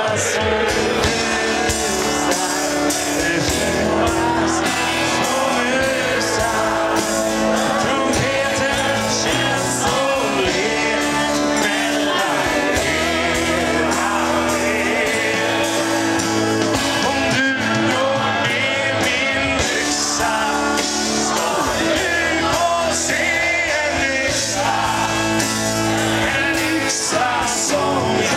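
A live pop-rock band playing, with electric guitars, bass, keyboard and drums under a male lead vocal sung in Swedish, recorded from within the audience.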